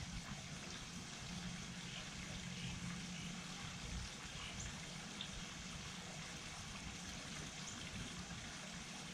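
Light rain falling steadily, with a faint low hum underneath and a few faint high ticks.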